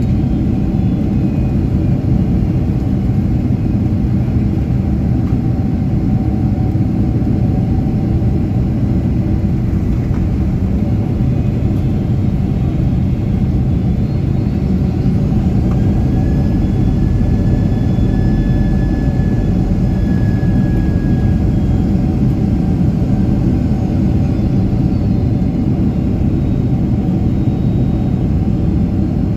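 Steady, loud low rumble of a Boeing 767-300ER's jet engines and airflow, heard inside the cabin at a window seat beside the wing engine. A faint high tone comes in a little past the middle and fades out several seconds later.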